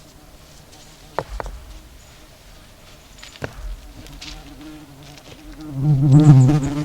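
A flying insect buzzing, faint at first, then loud and wavering close by near the end, with a few sharp knocks about a second in and again midway.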